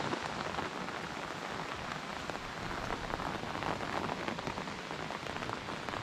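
Steady rain falling: an even hiss dotted with many small drop ticks.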